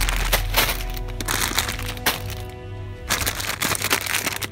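Plastic-wrapped coffee packs crinkling and crackling as they are grabbed off a shelf close to the microphone, in several bursts, over background music.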